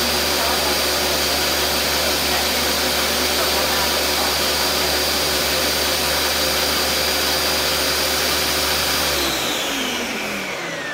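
Countertop blender running steadily at high speed with a motor whine, blending the hot cashew cheese mixture. About nine seconds in it is switched off and the whine falls in pitch as the motor winds down.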